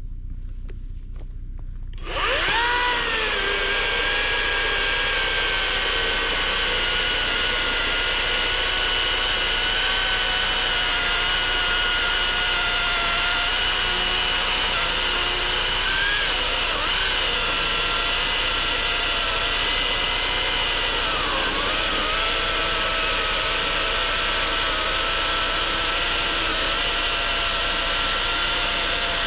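Greenworks Pro 80V cordless electric chainsaw starting up about two seconds in and cutting through a log: a steady high whine of motor and chain that sags briefly in pitch twice under load.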